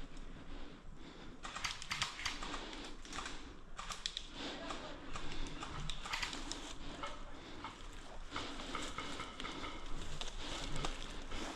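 Faint voices in the background with scattered knocks, clicks and rustling from movement and gear.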